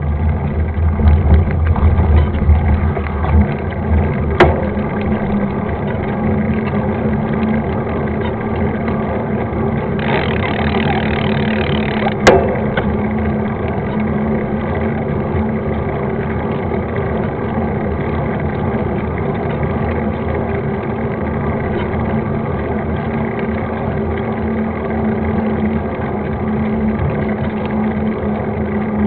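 Wind rushing over the camera microphone, with tyre and trail rumble, while a mountain bike is ridden along a dirt trail. Two sharp knocks come about 4 s and 12 s in.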